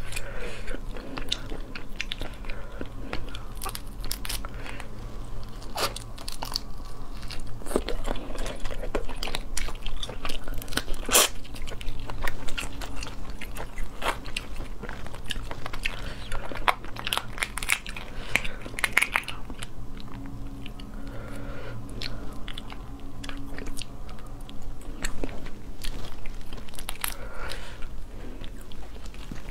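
Cooked crayfish shells cracking and crunching as they are twisted and peeled apart by hand, in many irregular sharp snaps, with close-up chewing and mouth sounds. The loudest crack comes about eleven seconds in.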